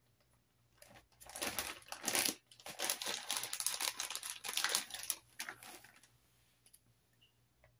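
Crinkly rustling of things being handled close to the microphone, starting about a second in and dying away about six seconds in.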